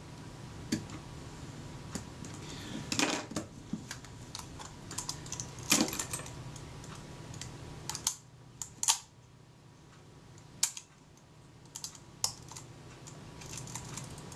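Small, sharp mechanical clicks and ratcheting from a Kodak Retina IIIc's film advance and shutter mechanism, in irregular clusters, as the advance lever is worked and the shutter cocks and is released. The owner is checking that the shutter cocks just before the film advance reaches the end of its stroke, after moving the drive on by one tooth.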